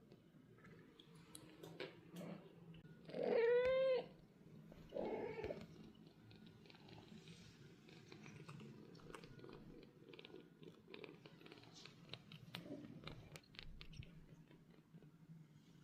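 A British Shorthair cat meows twice: one loud call about three seconds in and a shorter, softer one a second or so later, with faint clicks and rustling around them.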